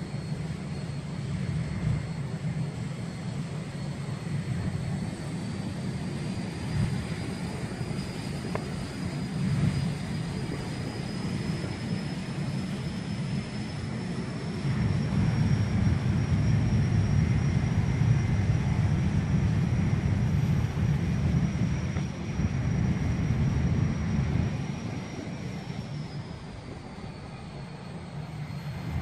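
Learjet 25D's twin turbojet engines running on the ground with a high whine over a low rumble. The whine rises in pitch and the engines grow louder about halfway through, then the pitch falls and the sound eases off near the end.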